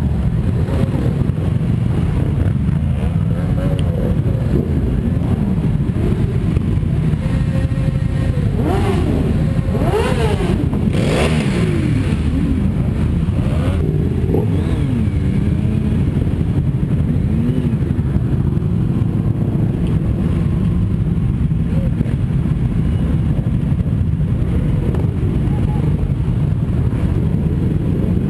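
A pack of sport motorcycles riding slowly in a group, their engines running steadily with several revs rising and falling, most of them around the middle.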